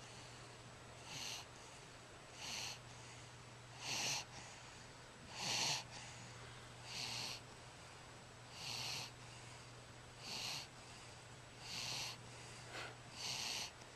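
Snoring of a young sleeper: short, wheezy, hissing snores in a regular rhythm, about one every one and a half seconds, nine in all. A steady low hum runs underneath.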